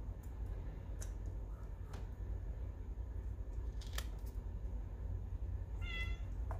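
Stationery handled during journaling: a few sharp, separate clicks a second or two apart, then a brief high squeak near the end, over a steady low hum.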